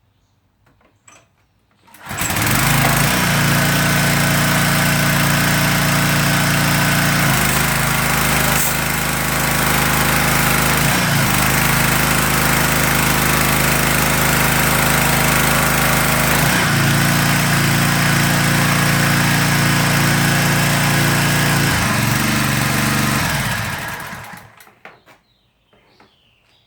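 Troy-Bilt gas pressure washer's small engine starts about two seconds in and runs loudly with a hiss of spray over it, its tone shifting a few times. It winds down and stops near the end. The repaired pump is building pressure, which the owner calls a success.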